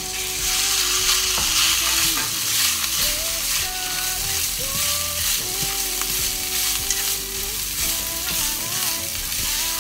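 Cooked rice sizzling in hot oil in a nonstick frying pan, the sizzle starting suddenly as the rice is tipped in and loudest in the first couple of seconds, then going on steadily while it is stirred with chopsticks, with light scraping taps of the chopsticks against the pan.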